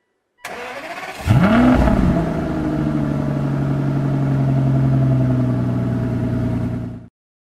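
Aston Martin DB9's V12 engine being started: the starter cranks briefly, the engine catches about a second in with a rev flare that rises and falls back, then settles into a steady idle. The sound cuts off suddenly near the end.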